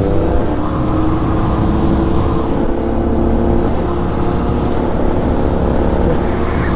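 Motorcycle engine running steadily at cruising speed, holding an even note.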